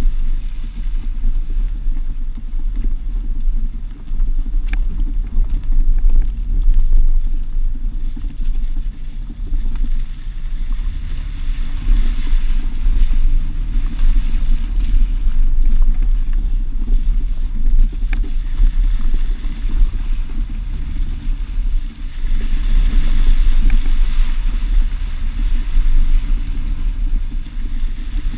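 A Jeep driving off-road, heard from a microphone on its outside mirror: a heavy, uneven low rumble of engine, drivetrain and wind on the microphone. A rushing hiss swells about twelve seconds in and again near the end.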